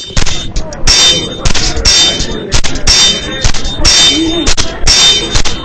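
Swords clashing in a staged sword fight: repeated loud metallic clangs, about two a second, each ringing briefly.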